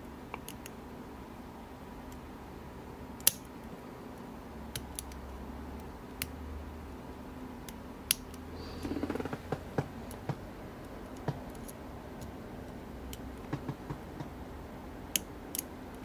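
Lock pick and tension wrench working the pins of an Illinois Duo padlock: small metallic clicks and ticks at irregular intervals, with a sharper click about three seconds in and a short rattling cluster around nine seconds.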